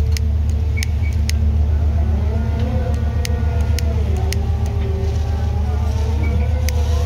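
Steady low drone of a tuna purse seiner's engine and deck machinery while the catch is being brailed aboard. Scattered sharp clicks and knocks run through it, and a faint wavering whine joins about two seconds in.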